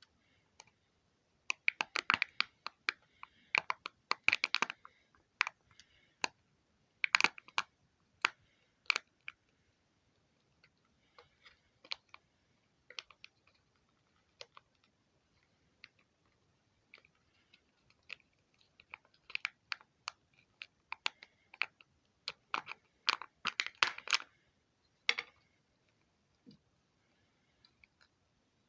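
Hands handling a Kinder Surprise egg and its small plastic parts: irregular bursts of small clicks and crackles, with two busy stretches, one near the start and one near the end.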